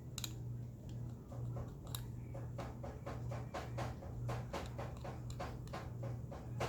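A run of light clicks and scrapes from working in the slime bowl, about two to three a second by the middle, over a steady low hum.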